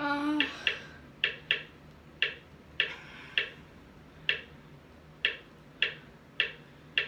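A run of sharp clicks at uneven intervals, about one or two a second, opening with a brief hummed voice sound in the first half second.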